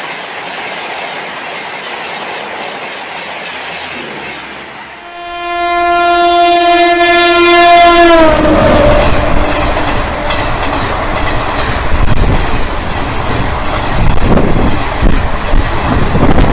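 A train: a steady rumble, then one long horn blast about five seconds in that lasts some three seconds and drops in pitch as it ends. After the horn come a loud rumble and rhythmic wheel clatter as the train passes.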